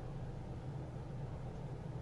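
Steady low background hum of room tone, with no other distinct sounds.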